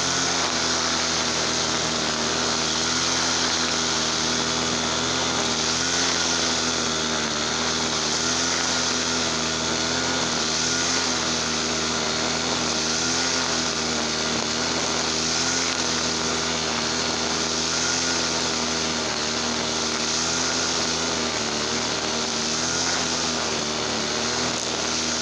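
Small two-stroke petrol brush cutter engine running steadily at speed, its pitch wavering slightly, with a strong high buzz.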